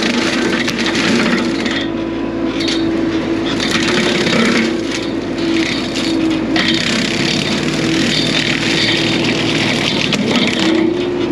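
Bobcat E42 mini excavator running with its hydraulic brush cutter head spinning: a steady machine hum under uneven crackling and scraping as brush and saplings are cut.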